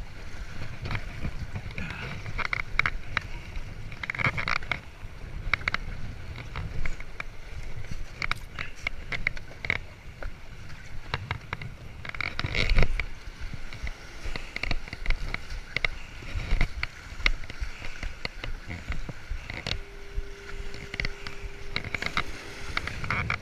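Scrambling over large stone breakwall blocks: many small scuffs, clicks and scrapes of shoes and hands on the rock, over a low rumble of waves and wind on the microphone. A louder knock about 13 seconds in. A faint steady tone holds for about three seconds near the end.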